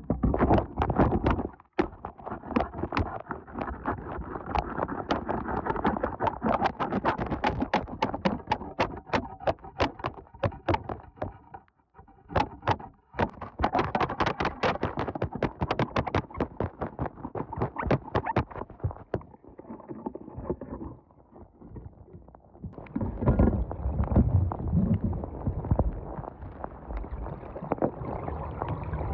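Rapid close clicking, knocking and scraping at the microphone of a smartphone dropped into a gap between concrete tetrapods, as something is worked against it to fish it out. About two-thirds of the way through this gives way to a rougher, lower rumbling scrape with sloshing water.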